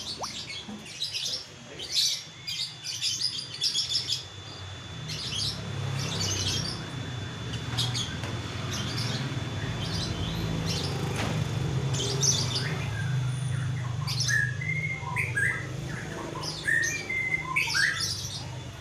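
White-rumped shama (murai batu) singing from inside a covered cage: a run of short, quick high chirps and calls, turning to lower whistled phrases near the end. A steady low hum runs underneath from about five seconds in.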